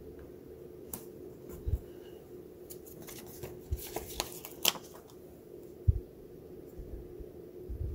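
Paper handling at a desk: a sticker being placed and pressed onto a planner page, with scattered light crinkles and clicks, busiest about halfway through, and a few soft thumps of hands against the desk, over a faint steady hum.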